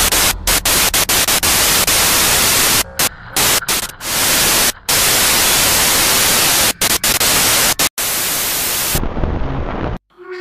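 Loud hissing static, like white noise, cut by many sudden brief dropouts and stopping abruptly near the end.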